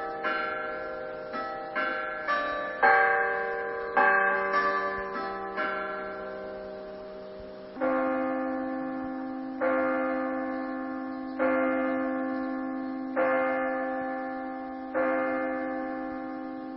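Bells ringing: a quick run of strikes on bells of different pitches, then a lower bell struck five times, about two seconds apart, each ringing out and fading, like a clock striking the hour.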